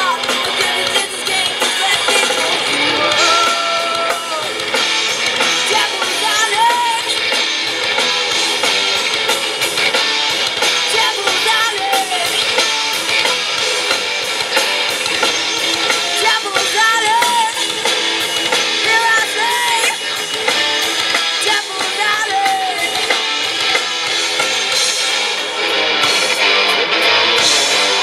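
Live rock band playing through a PA: electric guitars, bass guitar and drum kit, with a singer's voice over them.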